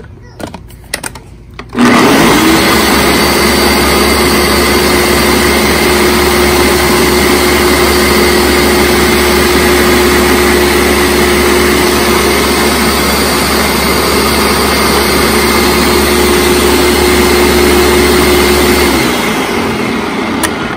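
Countertop blender running on a jar of salsa: a few light clicks, then the motor starts about two seconds in, runs at a steady pitch for about seventeen seconds, and winds down near the end. This is the salsa being blended again to mix in the added salt.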